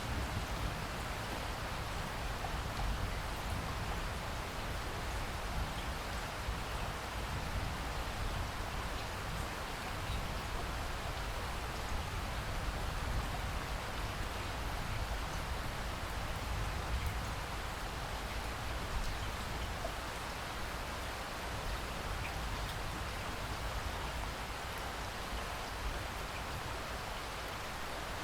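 Steady rainfall, an even hiss of rain with scattered individual drop ticks.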